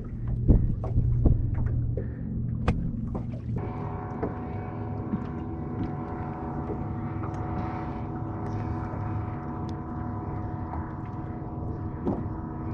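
Knocks and handling sounds over a low hum, then about three and a half seconds in a boat's electric trolling motor switches on and runs with a steady, even whine.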